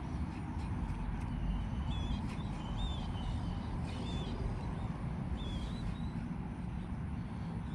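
A bird calling repeatedly with short high chirps, roughly one a second, over a steady low outdoor rumble.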